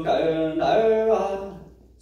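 A man chanting Hmong txiv xaiv, the sung funeral verse, in long drawn-out held notes; the phrase fades out near the end.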